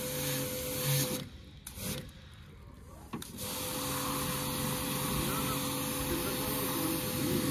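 Electric pressure washer running with a steady hum, spraying water onto the fins of an air conditioner's outdoor condenser unit to clean the coil. The motor stops about a second in and starts again about two seconds later.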